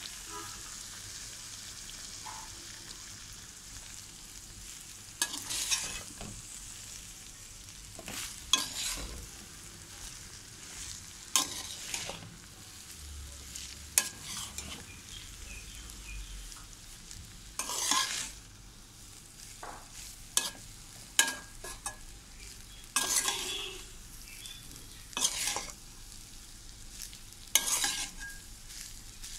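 Vegetable fried rice being stirred and tossed in a metal pot over the heat: a steady frying hiss broken by short stirring strokes every second or few, at uneven intervals.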